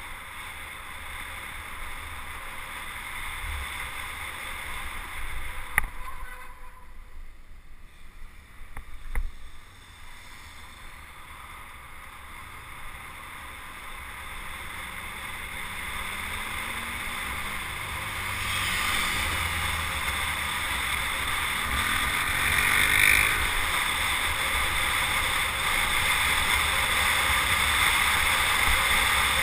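Wind rushing over the microphone with road noise during a fast descent down a mountain road. It grows steadily louder through the second half as speed builds, and there are a couple of sharp ticks early on.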